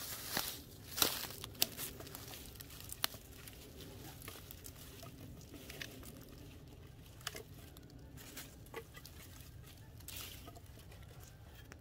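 Dry dead sticks cracking and clattering with a few sharp snaps in the first three seconds, the loudest at the very start. Then comes a softer crackle and rustle of dry leaf litter and twigs as the broken pieces of firewood are gathered up from the ground.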